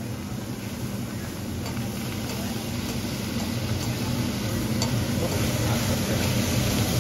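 Food sizzling on a hot teppanyaki steel griddle, a steady hiss that grows gradually louder, with a few light metal clicks of the chef's knife and spatula on the steel.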